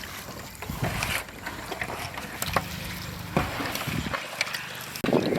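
Hands turning a large batch of fish pieces in a wet salt, turmeric and tamarind marinade, with irregular knocks and wet handling noise.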